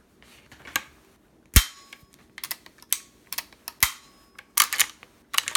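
Marlin 336 lever-action rifle's action being worked by hand during a function check after reassembly: a string of metallic clicks and clacks from lever, bolt and hammer. Two sharper snaps stand out, the loudest about a second and a half in with a brief ring, the other about two seconds later.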